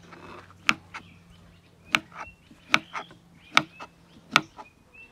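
Kitchen knife chopping through food onto a chopping board: five sharp knocks, about one every 0.8 seconds. Faint bird chirps between the strokes.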